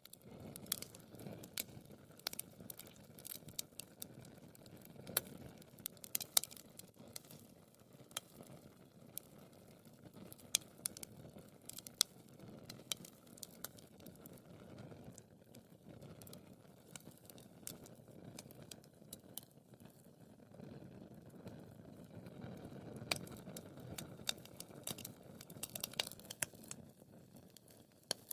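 Wood fire burning in a fireplace: a soft low rush of flames with irregular sharp crackles and pops of burning wood.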